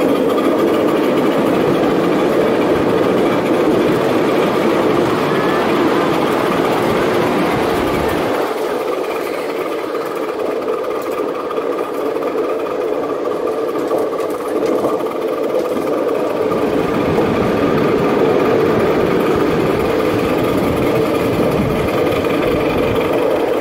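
Coal-fired live-steam miniature ride-on locomotive running along the track, a steady, rapid mechanical clatter of the engine and wheels on the rails. A deeper rumble while it crosses the steel bridge drops away about eight seconds in.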